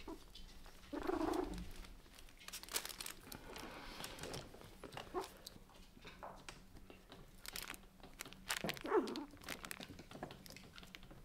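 Four-week-old toy poodle puppies scuffling and rustling about on a fleece mat among plush toys, with scattered soft clicks and crinkles. Two brief soft puppy vocalisations stand out, one about a second in and a short whine late on.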